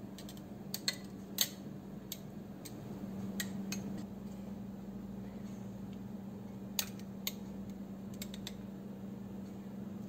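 Metal kitchen tongs clinking and tapping against a glass jar as lemon slices are put in: about a dozen light, sharp clinks in scattered clusters, over a steady low hum.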